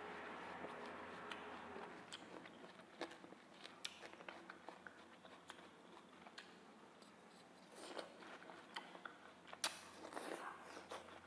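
Raw watermelon being chewed close to the microphone: faint wet crunches and mouth clicks, scattered and uneven, coming thicker and louder in the last few seconds.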